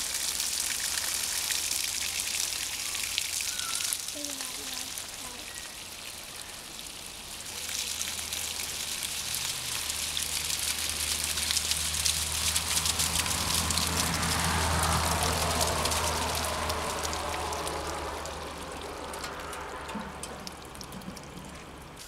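Water poured onto an old oak tree, running and dripping down a crease in its trunk: a steady hiss of trickling and splashing water. It eases off for a couple of seconds in the first third and then comes back.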